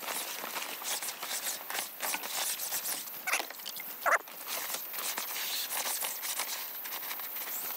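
Stocking-wrapped broom head scrubbing over camper canvas: a rough rubbing swish in repeated short strokes, with a brief louder sound about four seconds in.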